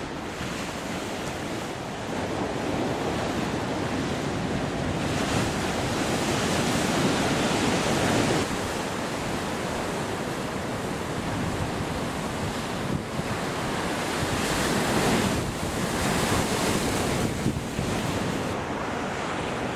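Sea waves washing and breaking, rising and falling in surges, with wind buffeting the microphone.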